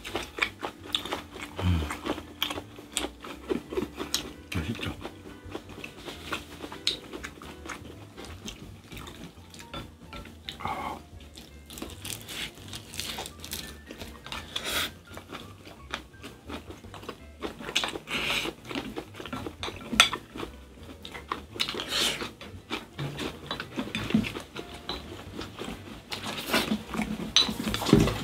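Two people eating spicy stir-fried squid over rice: chewing and mouth sounds, with chopsticks and spoons clicking against glass bowls in many short, irregular taps.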